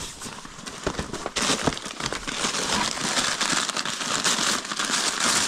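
Papers and books rustling and crinkling as a heavy bag is rummaged through by hand, the handling noise getting busier from about a second and a half in.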